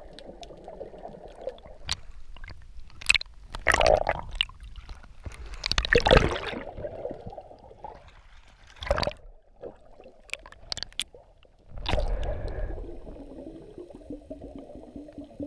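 Sea water sloshing and gurgling around a GoPro's waterproof housing as a freediver swims at and just below the surface, in irregular surges with the loudest about six seconds in.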